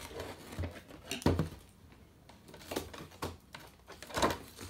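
A cardboard-and-plastic doll box being handled and worked open: a handful of separate sharp knocks and clacks of the packaging, the loudest about a second in.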